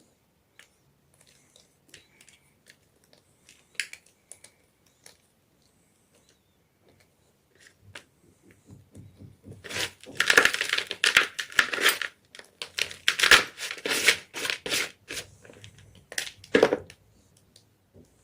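Gym chalk being crunched and crushed. A few faint crackles and ticks come first, then loud, dense crumbling crunches in two long runs from about ten seconds in, and one short crunch near the end.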